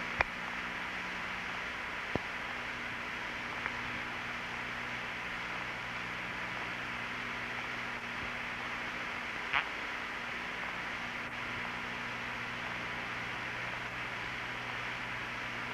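Steady hiss and static of an open air-to-ground radio link with a low hum underneath, broken by a few short clicks.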